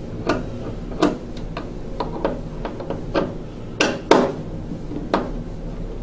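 Irregular sharp clicks and knocks of a hand tool working at the plastic condensate trap inside a Rheem gas furnace's sheet-metal cabinet as the trap is being unfastened, with two louder knocks in quick succession about two-thirds of the way through.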